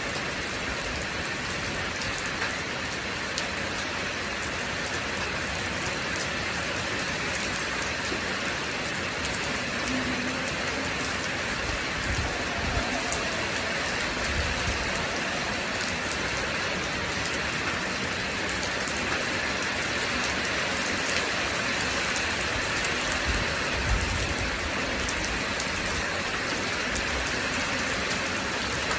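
Steady rain falling on a surface, a constant hiss dotted with the ticks of individual drops, with a couple of brief low rumbles partway through.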